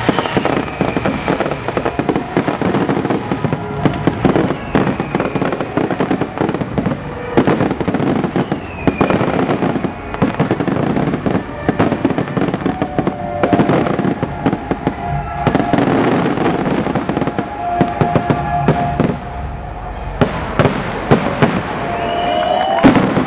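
Fireworks display in a dense barrage: rapid, overlapping bangs and crackling with no break, and now and then a falling whistle from a shell.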